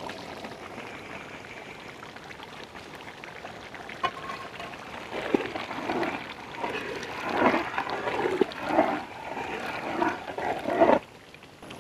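Thick chicken and mushroom curry bubbling in a large pot over a fire: a soft steady simmer at first, then louder, irregular bubbles popping from about four seconds in, breaking off shortly before the end.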